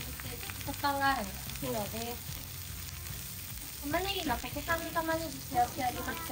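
Lamb slices and vegetables sizzling steadily on a hot cast-iron Genghis Khan grill, with snatches of people talking over it a few times.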